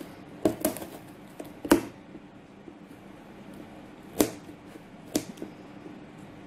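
Handling a cardboard parcel: a handful of sharp taps and knocks, the loudest a little under two seconds in and another about four seconds in, over a faint steady background hum.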